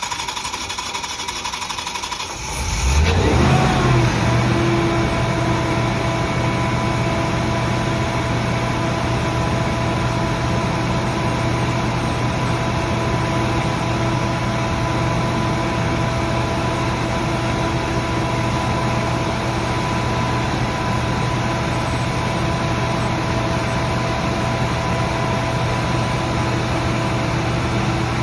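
Generac 48kW natural-gas generator engine being cranked by its starter and catching about two and a half seconds in, then running at a steady governed speed with a constant hum.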